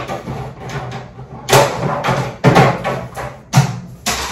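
Objects being shifted around on a shelf: a few sharp knocks and scrapes, roughly a second apart, starting about a second and a half in.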